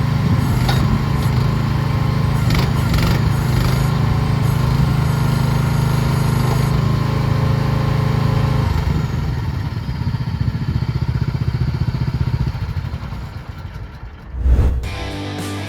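Mini excavator's small diesel engine running steadily, then slowing into separate pulses and dying away near the end, followed by one loud thump.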